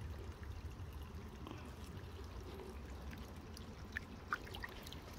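Water trickling steadily into a garden fish pond, with a couple of small splashes about four seconds in as a hand dips into the water.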